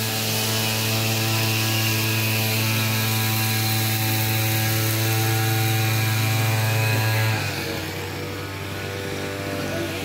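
A motor running steadily with a low, even hum. About seven seconds in, it drops slightly in pitch and gets quieter.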